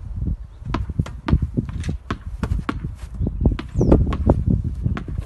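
Tennis balls knocking off a racket's strings in a quick series of short blocked volleys, sharp pocks roughly twice a second, over a low rumble of wind on the microphone.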